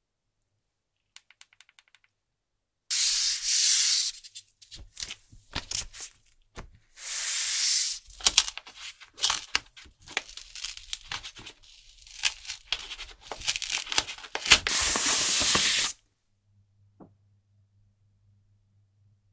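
Paper protective sheet rustling and sliding as it is lifted and pulled off a tablet's glass screen, in long rubbing strokes broken by short crinkles and handling noises. A quick run of small clicks comes about a second in.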